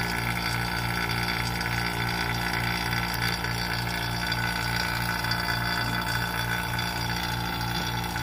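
Electric vacuum pump running steadily, a hum with a fast, even pulse, holding a resin-stabilizing chamber near full vacuum against a slightly leaky lid seal.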